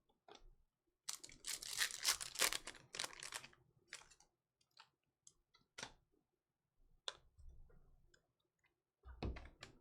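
Close crinkling and rustling of a foil trading-card pack wrapper and cards being handled, densest for a couple of seconds about a second in, then scattered light clicks and rustles.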